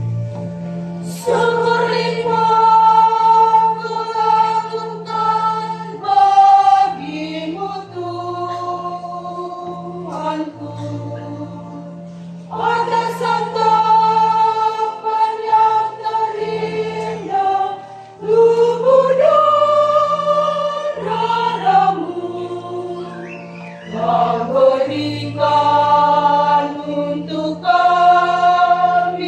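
Church choir singing a hymn together in phrases with long held notes, over an electronic keyboard's sustained low accompaniment.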